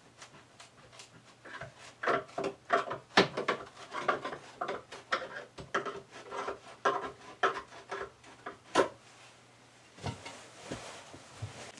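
Wooden slide-room trim being pried and worked loose: a run of short creaks and scrapes of wood against wood, ending in one sharper crack, followed by a few quieter handling knocks.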